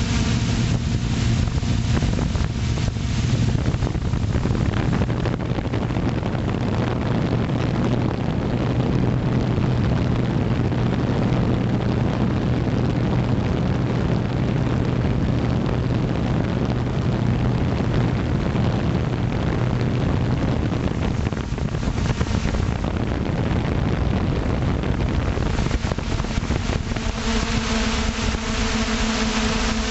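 Motor hum of a radio-controlled FPV aircraft, picked up by its onboard camera, buried in heavy wind rush over the microphone. The hum runs low and steady for most of the time and rises in pitch near the end.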